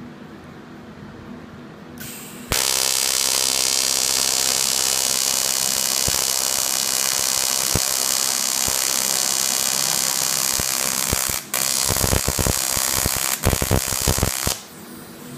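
AC TIG welding arc on thin aluminum, starting about two and a half seconds in as a loud, steady buzz, then turning erratic and crackling for the last couple of seconds before it cuts off. It is a tack weld made with the welder set short of heat, which the welder blames for a poor tack.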